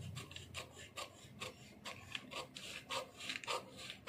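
Scissors cutting through a paper dress pattern: a run of short snips, two or three a second, with the paper rustling as it is cut.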